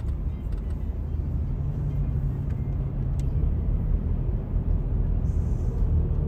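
Steady low road and engine rumble heard from inside a moving car, with a faint constant hum underneath.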